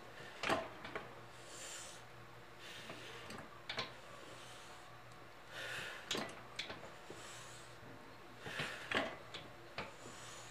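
A woman breathing hard through leg-extension reps on a home weight bench, with breathy exhales between the reps, and sharp clicks and knocks from the bench's lever arm and weight plates about every one to three seconds.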